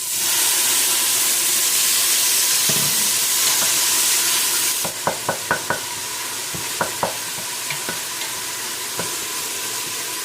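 Freshly added tomatoes, with sautéed garlic and red onions, sizzling loudly in hot sunflower oil in a pot. The sizzle eases about five seconds in, and a utensil then clicks against the pot several times as the mixture is stirred.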